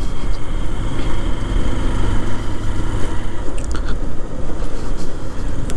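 Motorcycle engine running steadily under way on a rough dirt road, heard from the rider's seat over a constant haze of road noise, with a few faint clicks.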